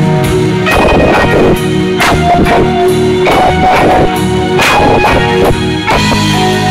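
Live rock band playing loud: electric guitar over a Sonor drum kit keeping a steady beat of regular drum and cymbal hits, with held guitar notes on top.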